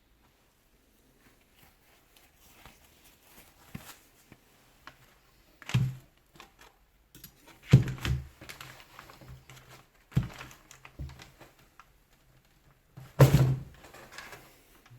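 Metal clicks, scrapes and clunks of a small puller and wrench being worked against a Hilti TE 40 AVR rotary hammer's housing to draw out its pressed-in seal, with four louder knocks standing out among lighter tool noises.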